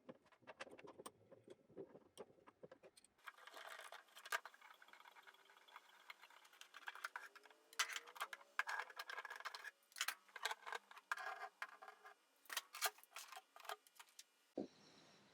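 Faint clicks, taps and light rattles of bench clamps being loosened and taken off a freshly glued acoustic guitar bridge, busier after the first few seconds. A faint squeak rises in pitch about halfway through.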